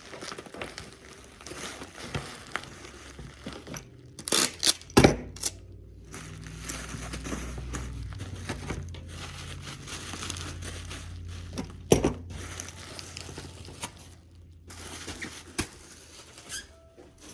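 Packing material crinkling and rustling as it is handled and wrapped, with a few sharp knocks about four to five seconds in and again about twelve seconds in, over a low steady hum in the middle stretch.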